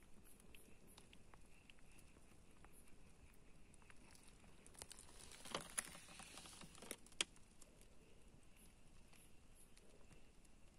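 Near silence outdoors, with scattered faint ticks and a faint steady high hiss. About five seconds in comes a short run of crackling clicks, two of them sharper.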